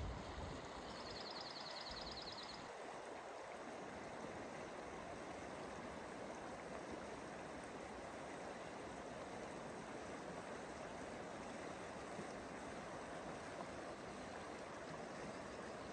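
Lostine River flowing: a steady rush of water. A high, fast trill sounds briefly about a second in.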